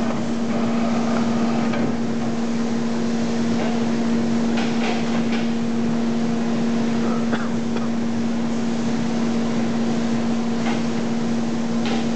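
Steady factory machinery hum, one constant tone over an even noise. There are a few brief rustles of plastic wrapping and light handling knocks, near the middle and near the end.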